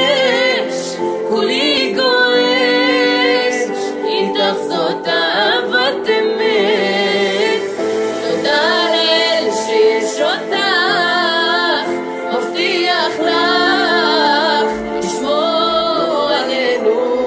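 A woman singing long, wavering held notes with strong vibrato over an instrumental accompaniment.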